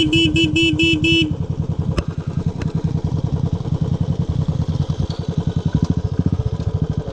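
Motorcycle engine running with a steady, even beat. About six quick beeps sound in the first second or so, then stop.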